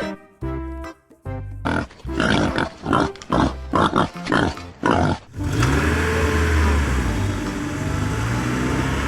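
Music, then a quick series of loud animal grunts starting about a second and a half in, then a steady rumbling noise from about five seconds in.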